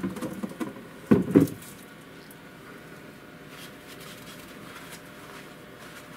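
Short handling noises: rustling and a few dull knocks, loudest about a second in, as the resin vat and the plastic-wrapped printer are handled. After that, only low steady room tone.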